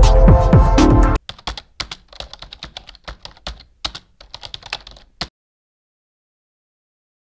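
Loud intro music cuts off suddenly about a second in. A keyboard-typing sound effect follows, a quick, irregular run of key clicks for about four seconds.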